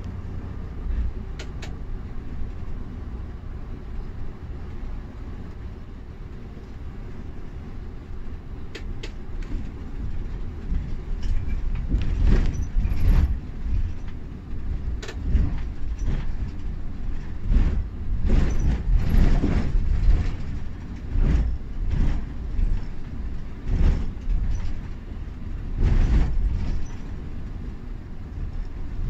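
Cabin noise inside an intercity coach driving on wet roads: a steady low rumble of engine and tyres. From about a third of the way in it is broken by a series of knocks and rattles as the coach rides over the road surface.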